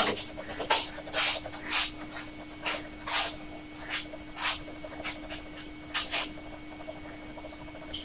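Fountain pen nib scratching across paper in short, quick hatching strokes, about one or two a second, thinning out near the end.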